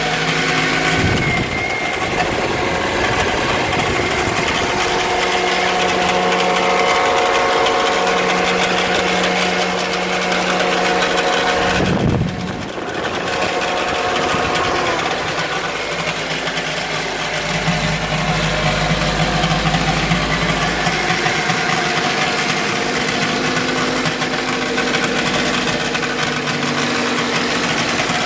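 2008 Toyota Corolla LE engine idling just after starting, with a rattle that lasts for the first few minutes after a cold start and goes away once the car has been driven.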